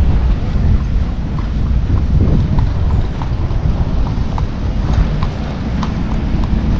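Horse hooves clopping at a walk, faint, about two clops a second, over a steady low rumble.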